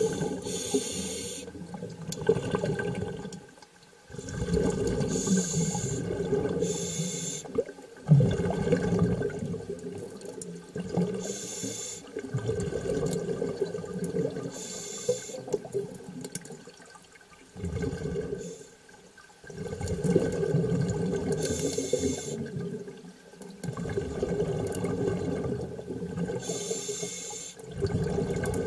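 Muffled underwater rushing and bubbling, recorded underwater, coming in surges of a few seconds with short lulls between them, and brief hissing bursts every few seconds.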